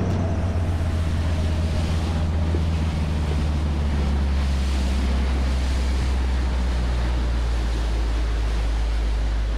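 Jeanneau 805 Leader speedboat under way at speed: a steady low engine drone under the rush of the wake along the hull, with wind on the microphone.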